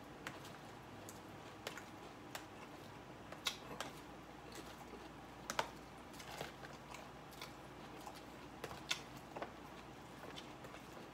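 A salad being eaten close to the microphone: irregular crisp crunches and clicks of chewing, with a few sharper, louder clicks among them.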